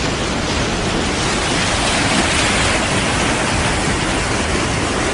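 Steady, loud rush of water in a flood, an even hiss with no breaks.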